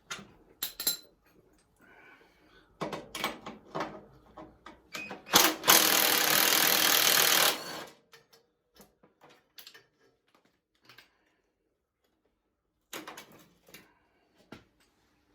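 Metal clicks and clinks of hand tools and loose parts during a teardown, with a power tool running loud and steady for about two seconds near the middle.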